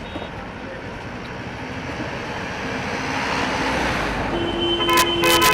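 Road traffic: a vehicle passing with a swell of road noise, then horns honking near the end.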